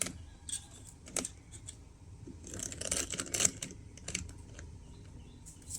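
Light clicks and scratchy handling of a small precision screwdriver on a tiny M.2 SSD retaining screw as it is backed out, with a busier cluster of clicks around the middle.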